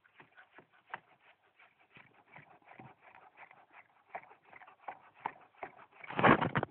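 A hand tool chips and snips into the base of a small tree trunk by hand: a quick, irregular run of small clicks and cracks, several each second. A louder burst of noise comes near the end.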